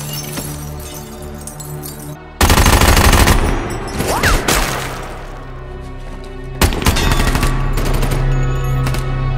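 Rapid automatic gunfire in a film soundtrack, starting suddenly and loudly about two and a half seconds in and again near seven seconds, over a steady dramatic music score.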